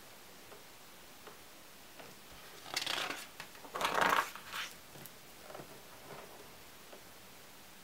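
Page of a hardback photo album turned by hand: a paper rustle about three seconds in, then a louder swish of the page turning over about a second later.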